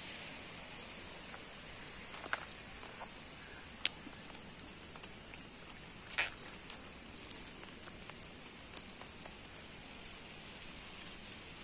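Small fish flopping on wet mud after being tipped from a wire fish trap: scattered short wet slaps and ticks, the loudest about 4, 6 and 9 seconds in, over a steady hiss.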